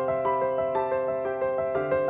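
Background music: a piano or electric piano playing a steady run of notes, about four a second.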